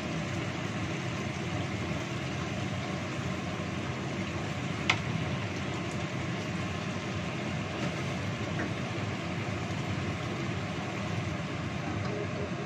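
Chicken simmering in thick coconut milk in a wok, a steady hiss of cooking, while a wooden spatula stirs through the pieces. One sharp knock about five seconds in.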